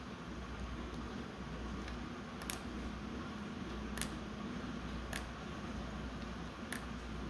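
A steady low hum, with four short, faint, sharp clicks spread through the middle and latter part.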